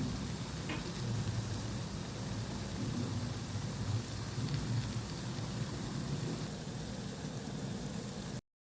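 Pakoras deep-frying in hot oil: a steady sizzle that cuts off suddenly near the end.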